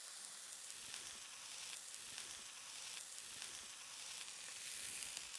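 A steak searing in a smoking-hot dry frying pan, the oil on the meat sizzling steadily.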